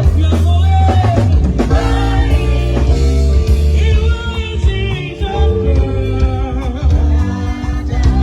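Gospel song sung over bass-heavy instrumental accompaniment, the voice sliding between held notes.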